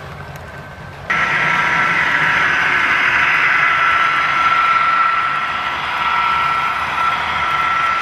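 Model diesel locomotives in BNSF green running past close by, then their train of covered hopper cars: a steady mechanical drone with a high whine, starting suddenly about a second in.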